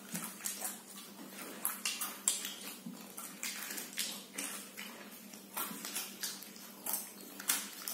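Two people eating Pringles potato chips straight off their plates with their mouths: irregular crisp crunching and munching, several sharp crunches a second, over a steady low hum.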